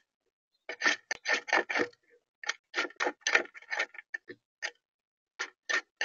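European starling pecking at seed in a plastic feeder tray right beside the microphone: quick, irregular taps and clicks in clusters, with short gaps.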